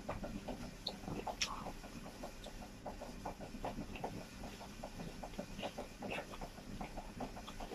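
Close-up chewing of a mouthful of rice and grilled chicken: faint, irregular small clicks and smacks of the mouth, several a second.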